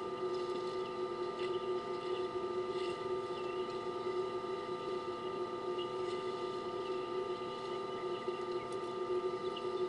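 A steady hum of several held tones over a faint hiss, with a few faint short chirps now and then.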